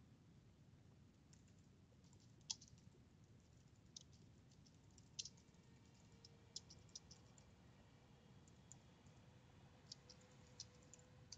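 Faint, sparse computer keyboard keystrokes as a short comment is typed, against near silence.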